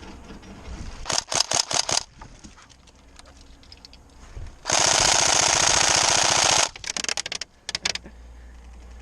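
Tokyo Marui SCAR-L airsoft electric gun firing: a quick string of shots about a second in, then a loud two-second full-auto burst of rapid cycling near the middle, followed by a few more quick shots.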